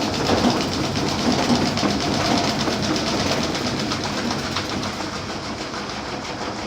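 Electrolux LTE06 top-load washing machine in its spin ramp with a heavy towel load bunched to one side: the motor and off-balance basket run with a fast, even rattle. It eases off slightly toward the end.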